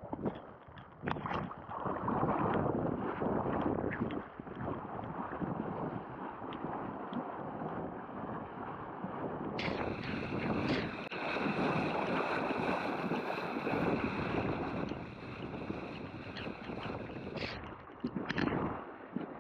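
Rough surf and wind buffeting the microphone, the noise swelling and easing every few seconds, with a brighter hiss joining for several seconds in the middle.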